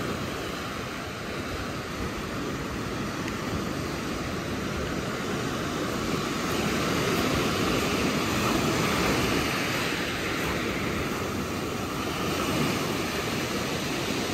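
Pacific Ocean surf washing up over a dark pebble-and-sand beach: a steady rush of breaking water that swells louder in the second half as waves run up the shore.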